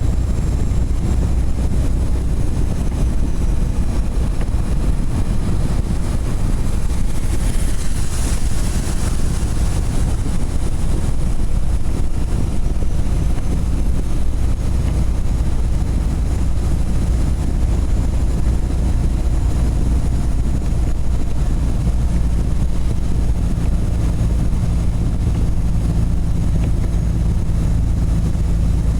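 Steady low rumble of a truck's engine and road noise heard inside the cab while driving, with a brief rush of hissing noise about eight seconds in. A steady engine hum joins the rumble about two-thirds of the way through.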